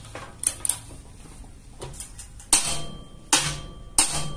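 Ratchet torque wrench tightening a bolt on a steel test bar to a 250 Nm setting. A few small clicks come first, then, from about two seconds in, sharp metallic clacks about every 0.7 s, each with a short metallic ring.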